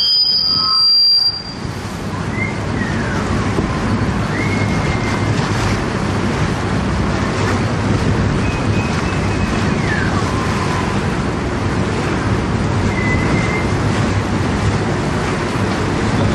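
Steady low noise of a tour boat underway on the river: engine hum and water, with wind buffeting the camcorder microphone. A brief high tone sounds at the very start.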